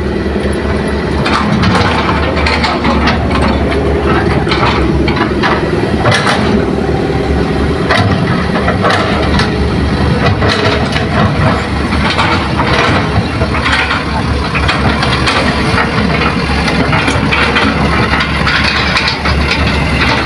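Hitachi hydraulic excavator at work on earth: its engine runs steadily under many sharp cracking and crunching impacts as the bucket works through soil.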